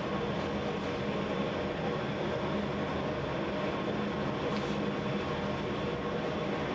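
Steady hum and rush of bakery machinery running, a continuous machine drone with a low, even tone and no change in pace.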